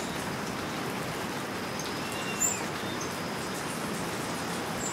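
Outdoor ambience: a steady, even hiss with a few short, high chirps, one a little louder about halfway through.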